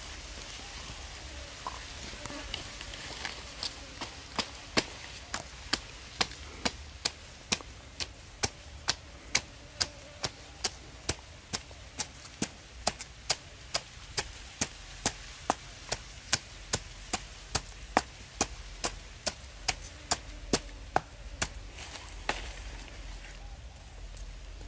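A wooden stick used as a pestle pounding in a coconut-shell bowl: sharp knocks at a steady pace of about two a second, starting a few seconds in and stopping a couple of seconds before the end.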